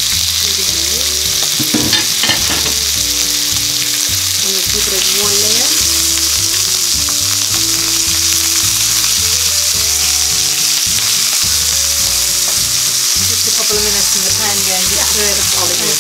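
Thin chicken strips sizzling steadily in very hot vegetable oil in a wok, stirred and turned with a wooden spoon.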